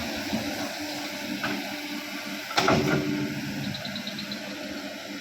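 Excavator engine running steadily, with one loud knock about two and a half seconds in.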